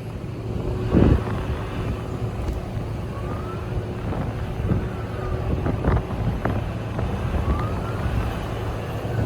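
Distant emergency-vehicle siren wailing, its pitch rising and falling several times, over a steady low rumble of wind on the microphone, with a few sharp knocks.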